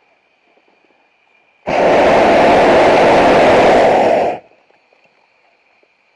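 Hot air balloon propane burner firing in one blast of nearly three seconds, a loud steady rush of flame that starts and cuts off abruptly, heating the envelope for a small hop off the ground.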